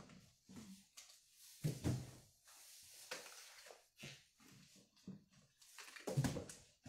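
Items being pushed and packed into a cardboard box: irregular rustling, scraping and knocks against the cardboard, with louder knocks about two seconds in and near the end.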